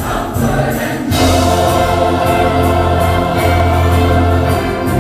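Church choir singing with instrumental accompaniment: a brief phrase, then a long held chord over a strong bass from about a second in.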